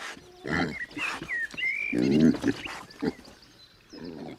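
Iberian pigs grunting, a series of short grunts with the loudest about two seconds in, and a few higher squeaks among them.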